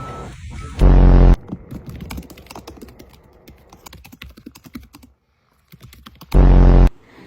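Computer keyboard keys clicking in quick, irregular runs as someone types. Two short, very loud low buzzes cut in, about a second in and again near the end.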